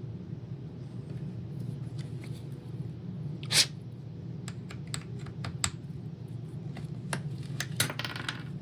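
Plastic clicks and taps from a Roomba robot vacuum's parts being handled and taken apart, with one louder snap about three and a half seconds in and a run of quick clicks after it, over a steady low hum.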